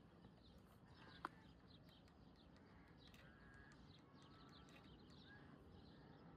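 Near silence with faint bird chirping throughout, and a single sharp click about a second in.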